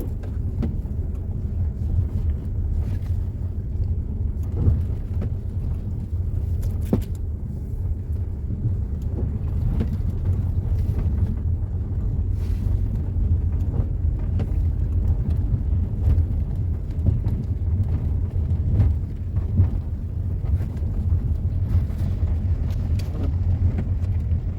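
Car driving: a steady low rumble of engine and road noise, with occasional small knocks and clicks.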